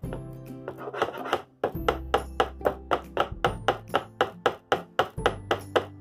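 Background ukulele music: steady plucked chords at about four a second.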